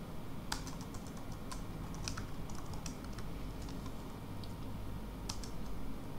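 Typing on a computer keyboard: irregular, scattered key clicks, over a low steady hum.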